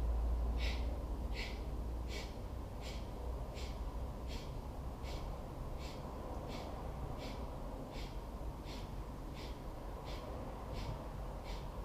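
Kapalabhati breathing through the nose: short, forceful nasal exhales snapped out by the belly at a steady pace, about one and a half a second, each a brief sniff-like hiss with a passive inhale between. A steady low hum runs underneath.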